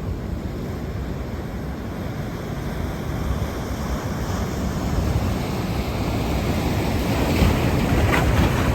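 Wind buffeting the microphone over the rush of typhoon-driven surf breaking, the surf growing louder in the last few seconds as a set wave comes through.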